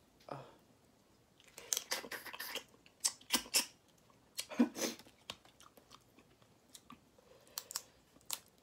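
Close-up eating sounds of spicy crayfish: shells cracked and peeled by hand and the meat chewed, heard as several short spells of wet clicks and crackles.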